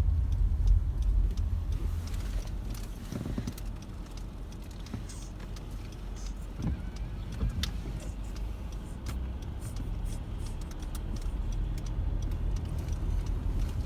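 A car running, a steady low rumble of engine and road noise, with scattered small clicks and knocks.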